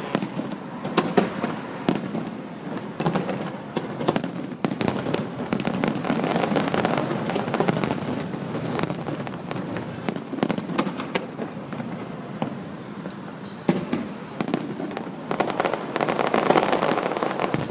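Fireworks display going off: a dense, near-continuous run of bangs and sharp crackling pops, with louder bursts scattered through it.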